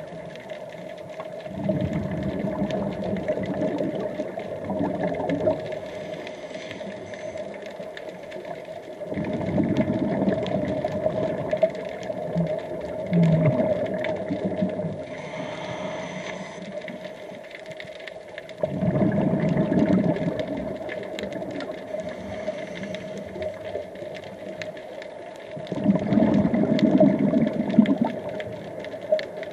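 Scuba diver's exhaled bubbles from the regulator, heard underwater: four bubbling bursts a few seconds long, about every eight seconds in the rhythm of breathing.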